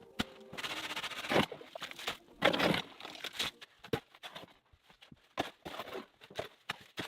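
Irregular rustling and scraping in two longer bursts, with scattered short knocks and clicks.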